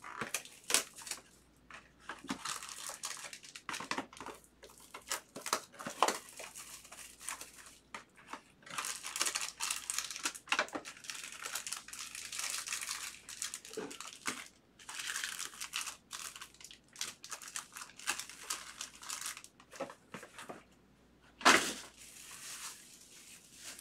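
Cellophane shrink wrap being torn off a trading-card box and crinkled, with foil card packs rustling as they are handled. Near the end a single sharp knock stands out as the loudest sound.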